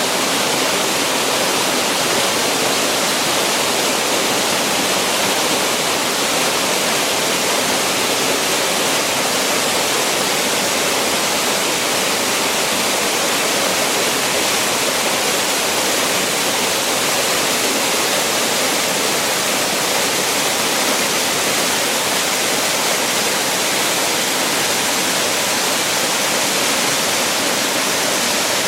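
Waterfall: falling water making a steady, loud, even rush with a strong hiss.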